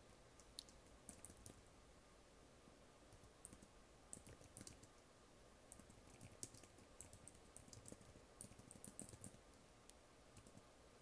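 Typing on a computer keyboard: faint, quick keystrokes in irregular runs with short pauses between them.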